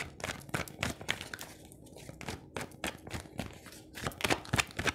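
Tarot cards being handled and shuffled: a run of irregular quick snaps and rustles, thinning out briefly in the middle and bunching up again near the end.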